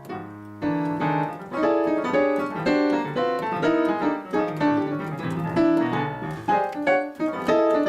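Piano-style keyboard playing an atonal jazz vamp of dissonant tone clusters: short stabbed chords, about three a second.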